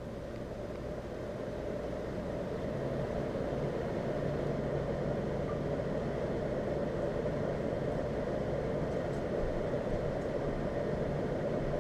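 2008 Amana 1-ton (12,000 BTU) PTAC air conditioner starting up: its blower's rushing air grows louder over the first few seconds, then runs steadily with a low hum underneath.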